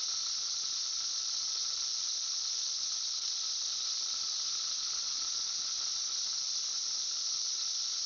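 Cicada song: a continuous, steady high-pitched buzz with a fainter lower tone beneath it, unbroken throughout.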